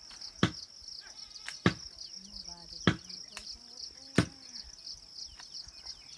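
A steady, high-pitched chorus of insects chirring. It is cut through by sharp, loud knocks that repeat about every second and a quarter, like steady strokes of chopping or pounding.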